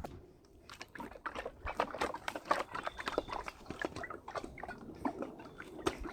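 Liquid crack filler sloshing and gurgling inside its plastic bottle as the bottle is shaken, in irregular strokes from about a second in.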